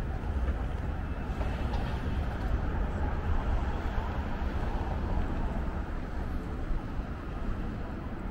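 Busy city street ambience: steady traffic noise with a constant low rumble.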